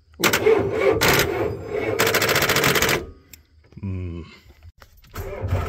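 Loud, rapid crackling clatter lasting about three seconds as Leatherman pliers are pressed across the starter wiring terminals beside the battery of a 7.3 IDI diesel truck. A second, similar clattering burst starts near the end.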